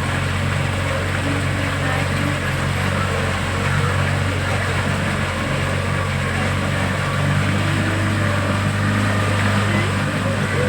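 Boat engine running steadily under way, a constant low drone with a steady hiss above it.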